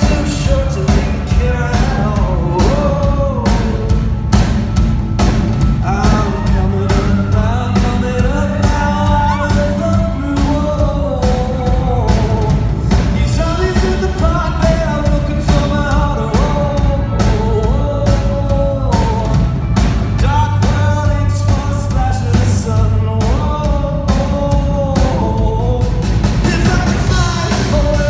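Live rock band performance: a male lead vocalist sings a gliding melody over a steady bass and a regular drum beat.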